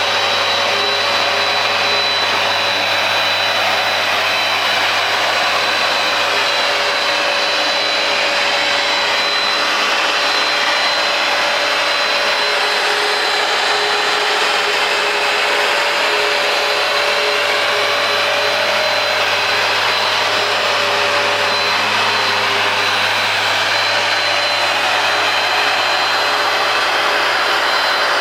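Hoover Power Dash carpet cleaner running steadily: the rush of its suction motor, with a steady high whine.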